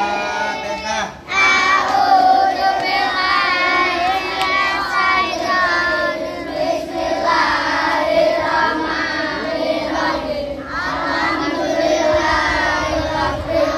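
A group of children singing together in unison, with short breaks between lines about a second in and again near ten and a half seconds.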